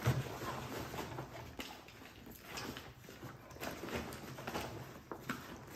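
Gear being packed into a nylon backpack: fabric and pouches rustling, with many soft knocks as items are pushed in and the bag is handled.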